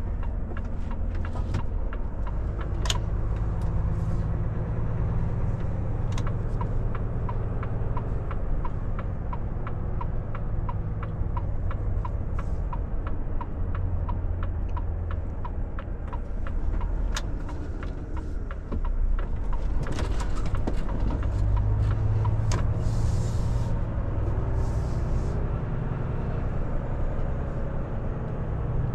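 Volvo FH460 truck's six-cylinder diesel engine running at low speed, heard from inside the cab, with the turn indicator ticking steadily through much of the first half. The engine pulls harder about two-thirds of the way in, and a brief hiss of air follows.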